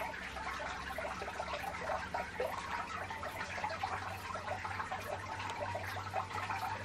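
Trickling water with many small irregular drips, over a low steady hum.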